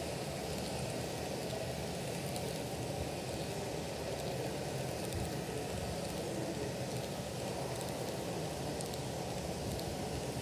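Model train double-stack well cars rolling past close by: a steady rumble of metal wheels on the rails, with faint light clicks over it.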